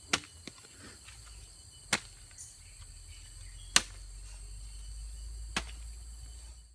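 A long-handled hoe chopping into loose grave soil four times, about one stroke every two seconds. Insects chirr steadily throughout.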